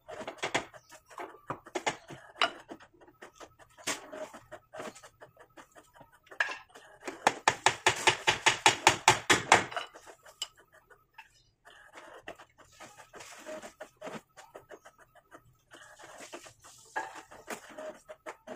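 Claw hammer driving nails into a wooden frame: scattered knocks, then about seven seconds in a rapid, even run of blows lasting nearly three seconds.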